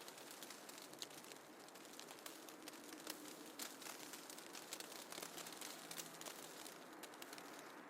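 Snowfall ambience: a faint, steady hiss scattered with many light ticks and crackles.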